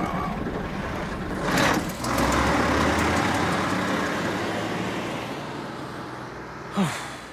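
A bus pulling away and driving off, its engine and tyre noise fading steadily, with a short hiss about a second and a half in. Near the end comes a brief sound that falls sharply in pitch.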